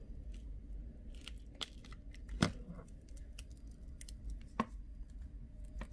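Small clicks and scrapes of a plastic prying card working under the glued edge of a phone's touchscreen digitizer, with two sharper clicks, one about two and a half seconds in and one about four and a half seconds in.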